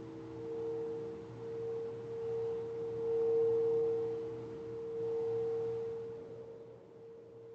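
Singing bowl sustaining a ringing hum of several tones at once, swelling and fading in slow waves and easing off near the end.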